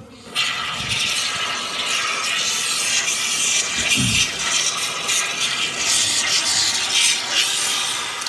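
Bee-suit mesh fabric rubbing and scraping close against the microphone: a loud, continuous scratchy noise that starts about half a second in and cuts off at the end.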